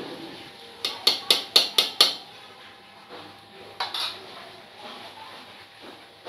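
A ladle clinking against the pot of sambar as it is stirred: a quick run of about six sharp knocks, then one or two more a couple of seconds later.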